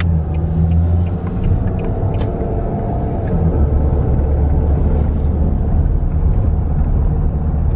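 A car's engine and tyres heard from inside the cabin while driving: a steady low rumble.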